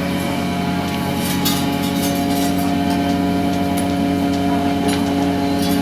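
Machinery aboard a longline fishing boat running steadily: an even, droning hum of several held tones, with scattered light clicks and rattles.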